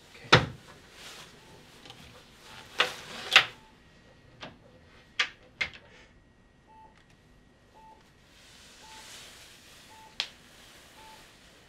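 Bedside medical monitor beeping, one short electronic beep about every second. Sharp clicks and knocks of a door and footsteps fall in the first half, the loudest just after the start.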